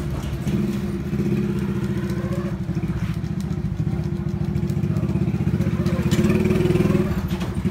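A motorcycle engine idling steadily, getting a little louder near the end.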